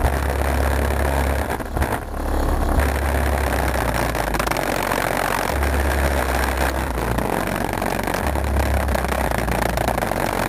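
Bass-heavy music played through two 10-inch Rockford Fosgate Punch Stage 1 car subwoofers, heard from on the car's body: long, deep bass notes about every two to three seconds over a steady, dense mid-range. The subwoofers are being broken in at moderate volume.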